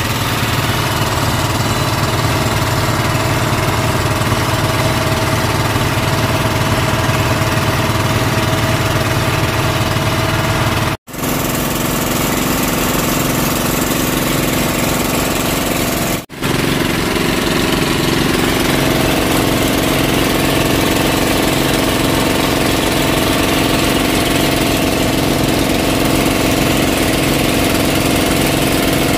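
Fishing boat's engine running steadily while under way, cutting out briefly twice.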